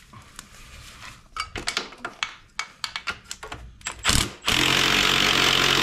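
Clicks and knocks as a socket on an extension is fitted onto a bolt. About 4.5 s in, a Milwaukee M12 Fuel cordless power tool starts and runs steadily, loosening the bottom engine-mount bolt of the quad.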